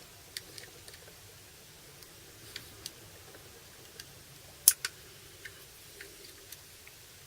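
Scattered light clicks and taps of hands working a plastic mains plug off a vacuum cleaner flex, with two sharper clicks about halfway through.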